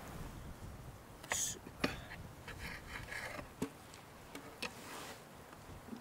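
Knife and fork working on a plate, cutting through a burger: scattered light clicks and taps with a short stretch of scraping.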